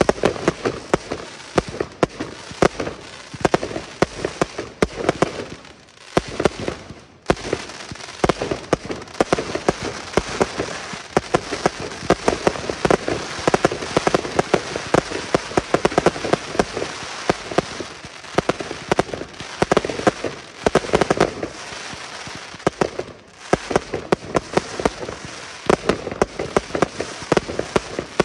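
Fireworks display: a dense, continuous crackle of many small pops, rain-like in texture, with louder shell bursts standing out throughout. The crackle drops away briefly twice, about a third of the way in and again later.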